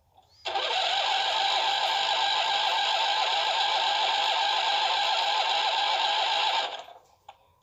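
Starter motor of a 2006 Huskee riding tractor cranking the engine, with a slightly wavering whine. It begins abruptly about half a second in and stops abruptly after about six seconds without the engine catching.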